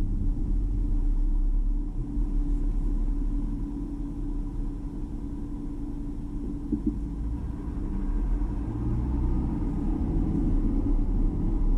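Low, steady rumble of a car heard from inside the cabin. It is quieter while the car waits at a red light and rises again as the car pulls away about eight seconds in.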